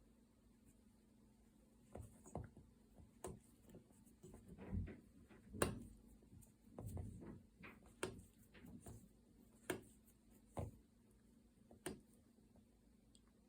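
Soft, scattered clicks and rustles of hand work on a potholder loom: cotton loops being lifted off the pegs and drawn through one another during the bind-off. The taps come irregularly, a few each second, then thin out near the end.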